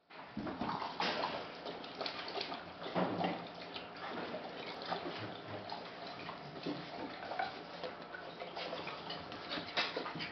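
Six-week-old Shiloh Shepherd puppies' claws clicking and scrabbling on a ceramic tile floor as they scamper and play: a string of quick, irregular ticks.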